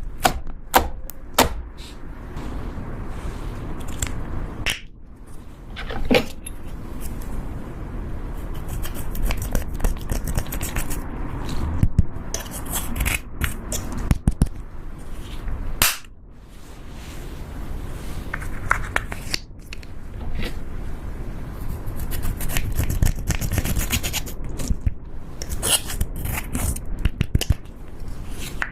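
Slime being squeezed and poked by hand: an irregular string of sharp, wet pops and clicks, with bursts of quick crackling.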